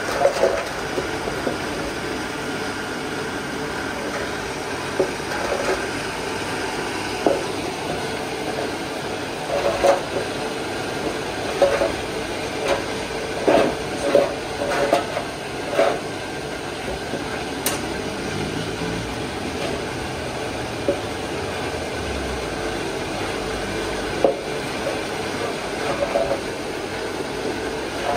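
Steady rushing of a forge fire under forced air, with scattered short scrapes and clinks, most of them in the middle of the stretch, as a copper pot is worked over the flames to heat it for tinning.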